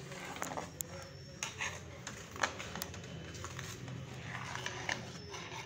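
A spoon stirring thick, milky carrot-and-rice pudding in a metal pot, with scattered clinks and knocks against the pot's sides and a low steady hum beneath.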